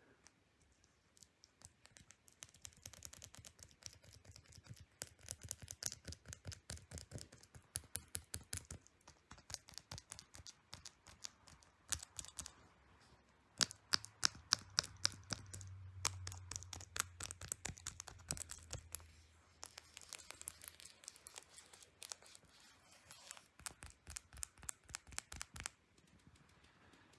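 MSI laptop keyboard keys being pressed in quick runs of clicks, with a few short pauses. The keys are sticky from spilled sweet tea.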